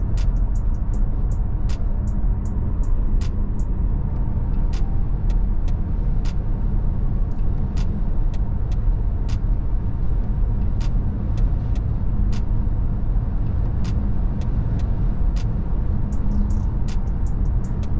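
A 2017 Volkswagen Tiguan 1.4 TSI, a four-cylinder turbo petrol, driving at a steady pace: a deep, even drone of engine and tyre noise. Frequent faint sharp ticks come at irregular spacing throughout.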